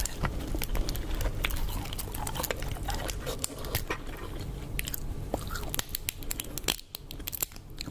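Close-up eating sounds of prawns being bitten and chewed, with frequent sharp crunching crackles throughout and a brief pause near the end.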